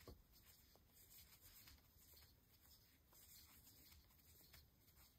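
Near silence, with faint rustling of yarn and light ticks of a metal crochet hook working double crochet stitches.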